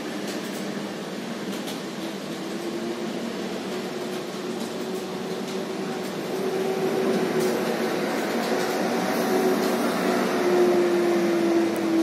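Steady hum of road traffic that swells in the second half as a vehicle passes, its engine tone dropping slightly near the end.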